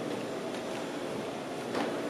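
Steady hollow room noise inside a large locomotive roundhouse, with a faint steady hum and a few light knocks, the clearest one near the end.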